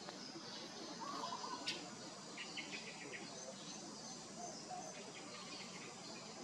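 Outdoor wildlife background: faint bird chirps and a rapid run of insect-like pulses over a steady hiss, with one sharp click about a second and a half in.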